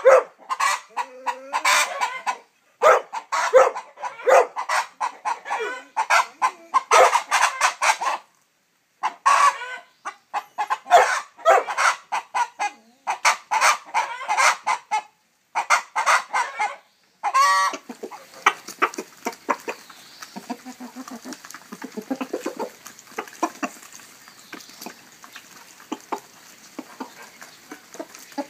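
Domestic hens clucking: loud spells of clucking broken by short silences, then, about two-thirds of the way through, a softer continuous clucking of a whole flock.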